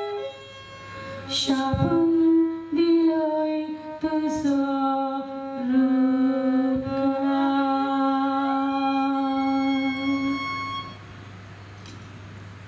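A woman sings a slow solo lament into a microphone, holding long notes that glide between pitches. The singing stops about eleven seconds in, leaving a low steady hum.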